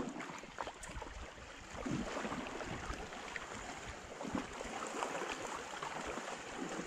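Horses wading through shallow sea water: a steady, irregular splashing and sloshing of water around their legs.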